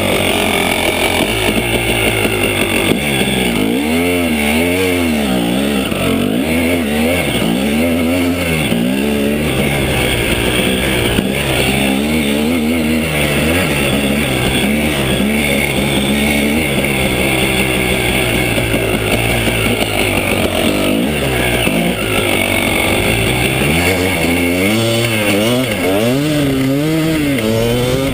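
KTM 300 EXC Sixdays two-stroke single-cylinder enduro engine under riding load, revving up and down over and over as the throttle is worked through the track's turns and bumps.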